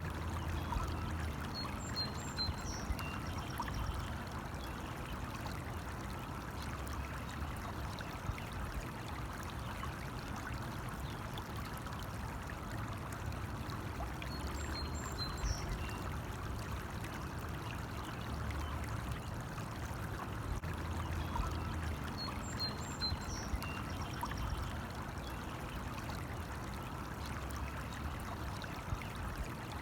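Small stream flowing and trickling steadily. A short high call, likely a bird, sounds three times.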